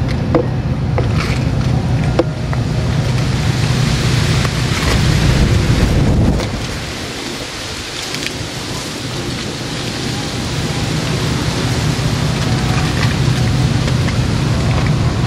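Strong wind buffeting the microphone over steady rain. The low rumble of the gusts eases off about six seconds in, then builds again a few seconds later.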